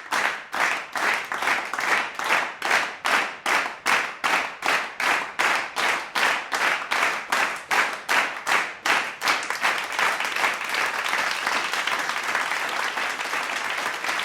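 Audience clapping together in a steady rhythm, about three claps a second, then breaking into ordinary scattered applause about nine to ten seconds in.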